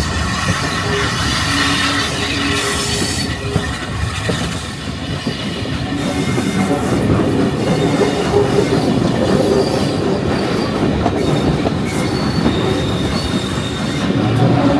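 Heritage railway carriage running along the track: steady rumble and clatter of the wheels on the rails, with thin wheel squeals that come and go. It grows somewhat louder about halfway through.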